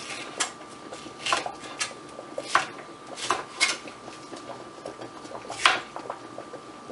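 Chef's knife slicing a red bell pepper into julienne strips, the blade knocking on the cutting board in irregular sharp taps, the loudest near the end. A faint steady high tone hums underneath.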